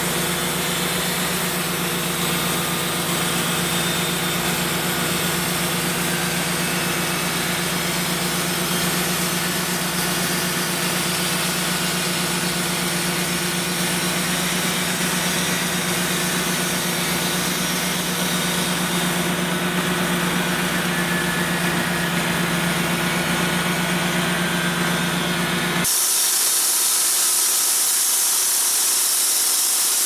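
Wood-Mizer LT35 portable band sawmill's engine running steadily at an even idle. About four seconds before the end the sound switches abruptly to the loud hiss of the band saw blade cutting through a log.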